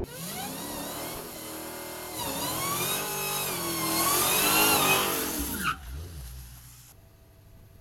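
Dodge Challenger SRT Demon 170's supercharged 6.2-litre V8 revving up and down during a burnout, with its rear tyres spinning and squealing. The revs rise and fall several times and are loudest about five seconds in, then cut off sharply and fade.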